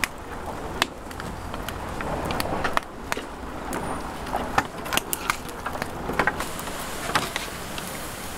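Street-market stall ambience: a steady background hubbub broken by irregular sharp clicks and knocks of utensils and hard objects.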